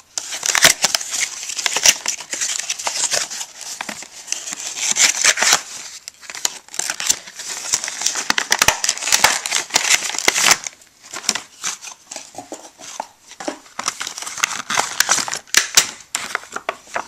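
Cardboard packaging being pulled open and a clear plastic bag crinkling as the puzzle is unwrapped from it. Dense crackling with many sharp clicks and snaps, thinning to scattered clicks for a few seconds past the middle.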